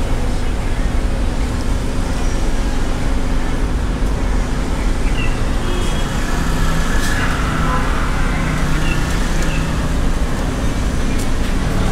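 Busy street ambience: a steady low rumble with a faint hum and the faint voices of passers-by.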